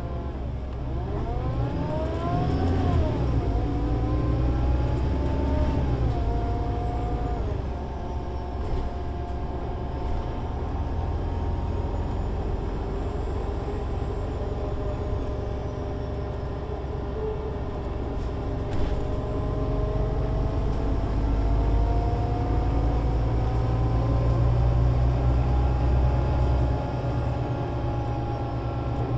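Solaris Urbino 18 IV articulated bus's DAF diesel engine pulling away through its Voith Diwa 6 automatic gearbox. The revs rise and drop at two upshifts, about 3 and 6 seconds in, then climb slowly as the bus gathers speed, easing off near the end. A faint high whine rises and falls above the engine.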